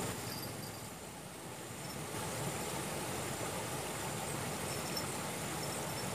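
Outdoor dusk ambience at the water's edge: a thin, steady, high insect trill over a low even hiss, with a few faint high chirps.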